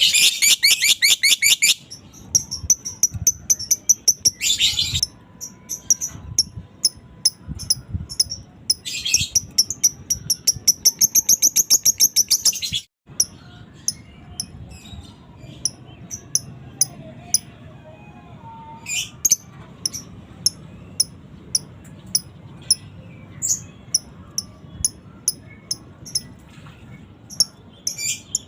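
Fighter lovebird calling: long, fast chattering trills (ngekek) in three runs, the longest near the middle, then scattered sharp chirps. The sound cuts out completely for a moment about 13 seconds in.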